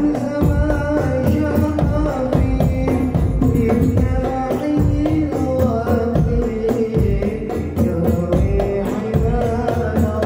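Hadrah ensemble playing: hand-struck rebana frame drums and a large bass drum beat a steady, busy rhythm under a sung Islamic devotional melody (sholawat).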